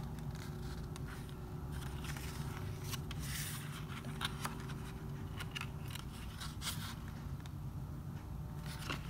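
Pages of a CD album's photo book being handled and turned, with several short papery rustles and scrapes.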